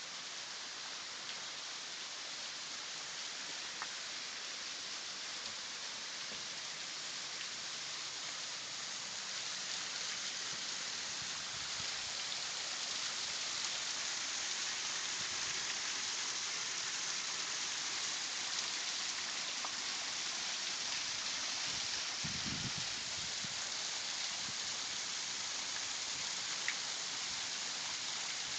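Waterfall splashing in a steady hiss, which grows a little louder about ten seconds in. A brief low rumble comes about two-thirds of the way through.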